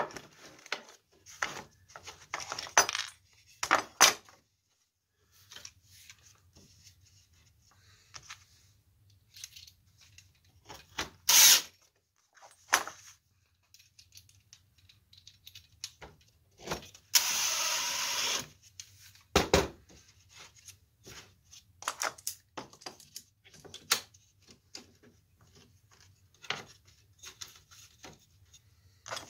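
Workbench handling sounds: scattered clicks, taps and knocks of hand tools, bar clamps and a wooden block being picked up, set down and fitted against a wooden frame. About 17 s in there is a steady burst of noise lasting over a second, followed by a louder knock.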